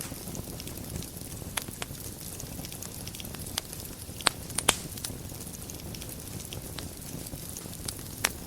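Wood fire burning in a fireplace: a steady low rumble with constant light crackling and a few sharp pops, the loudest two close together about halfway through and another near the end.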